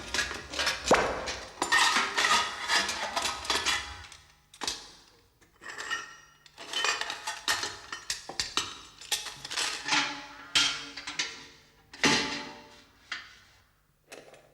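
Cartoon sound effects: bursts of rapid metallic clanks, clatters and knocks, with short lulls about four, six and fourteen seconds in.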